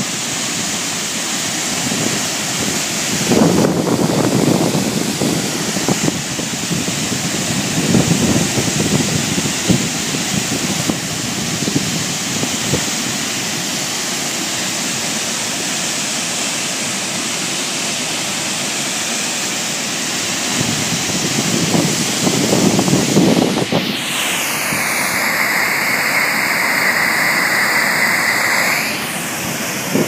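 The steady rush of a large, wide waterfall: the Indravati River dropping about 90 metres at Chitrakoot Falls. Wind gusts on the microphone several times over it.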